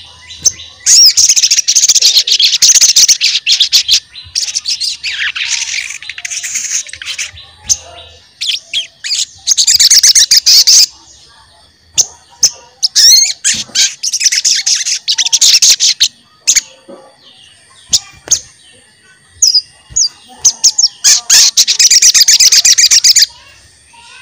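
A sogon songbird singing its rapid 'cuit cuit' chirping song, in repeated bouts of fast high chirps each lasting a second or more, with scattered single chirps between the bouts. This is the kind of song played as a lure to set other sogon birds singing.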